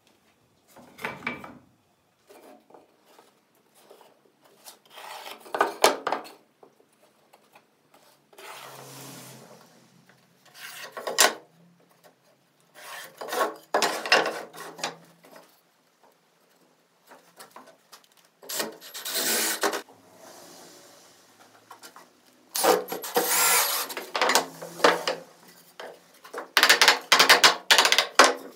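Wood being worked by hand: rough scraping strokes in irregular bursts of a second or two with pauses between, loudest near the end.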